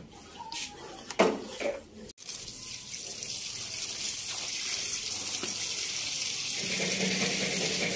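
A few knocks from a ladle stirring a large steel cooking pot, then about two seconds in a water tap starts running steadily, splashing onto oranges in a plastic basket as they are washed by hand. The splashing grows fuller near the end.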